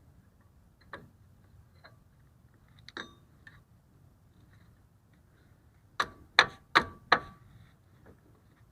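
Four sharp metal-on-metal knocks in quick succession, each with a brief ring, from work on a Jeep Wrangler TJ's rear drum brake. A few lighter clicks of tools and parts come before them.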